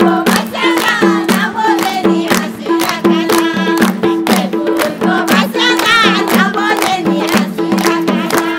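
A Nepali dohori folk song plays, with singing over a steady drum beat.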